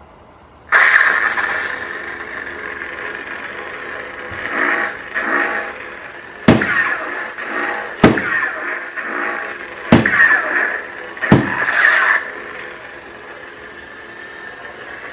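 Crossguard lightsaber replica's electronic sound effects: a sudden ignition about a second in, then a steady hum that swells with swings, broken by four sharp clash strikes about every one and a half to two seconds, and the hum running on more quietly near the end.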